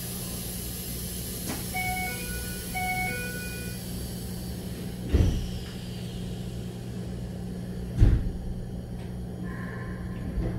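Keikyu 1000 series commuter car at a station stop: the door chime sounds twice, then the sliding doors close with a thud about five seconds in, followed by a louder thump around eight seconds. A steady hum from the car's onboard equipment runs underneath.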